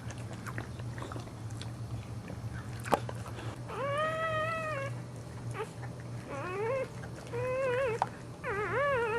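Newborn Boxer puppy crying: four high-pitched mewling cries, the first held for about a second, the last three shorter and wavering in pitch. A single sharp knock comes about three seconds in.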